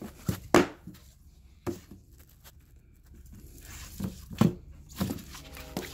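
Packs of fireworks being handled and set down: scattered knocks and taps, two near the start and a cluster in the last two seconds.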